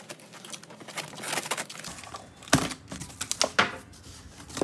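Scissors cutting the packing tape on a corrugated cardboard box, then the box flaps being pulled open: crackling cardboard and tape with several sharp cracks and knocks, the loudest about two and a half seconds in.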